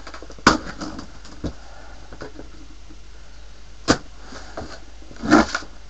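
Handling noise of a shipping parcel being opened: a sharp knock about half a second in, another near four seconds, and a short burst of rustling and knocking near the end, with fainter scuffs between.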